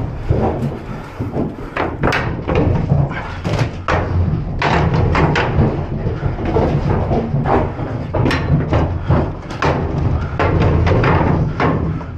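Repeated knocks and thumps inside an empty aluminium livestock trailer as someone walks through its compartments, over a steady low rumble.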